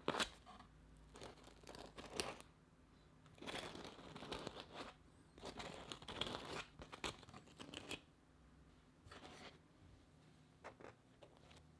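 Metal spreading knife pushing thick condensed-milk butter cream into the slit of a soft baguette, scraping against the bread in short strokes: soft, crackly rasps in several bursts, with a few light ticks near the end.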